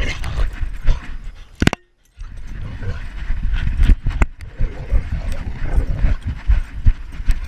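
Camera strapped to a dog's back, jolted by its running and playing: a quick, uneven run of low thumps and knocks, with a sharp knock and a brief drop-out about two seconds in.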